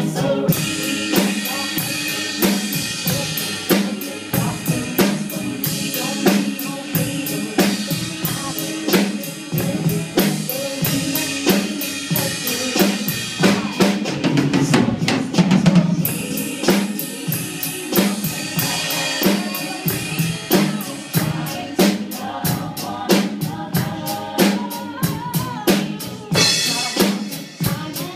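PDP drum kit played live in a steady beat, bass drum and snare with cymbals, over recorded backing music. The cymbals grow louder and brighter near the end.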